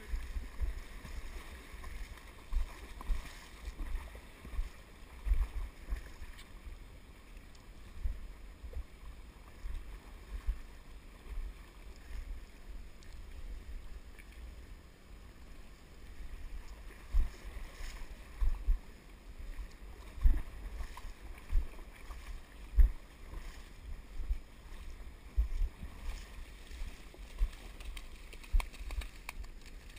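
Muffled low rumble with irregular bumps from wind and handling on a GoPro camera in its waterproof housing, over a faint hiss of river water.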